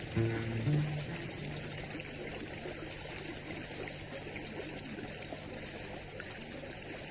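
Stream water running and trickling steadily, with the tail of background music ending about a second and a half in and a low steady hum underneath.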